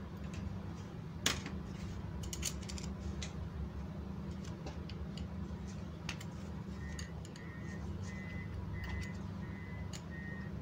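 Small metal clicks and clinks as an angle grinder's gear head is taken apart by hand, its bearing box lifted off and the spiral bevel gear handled, with the sharpest click about a second in and a quick cluster a second later. A steady low hum runs underneath, and a faint broken high tone comes in during the second half.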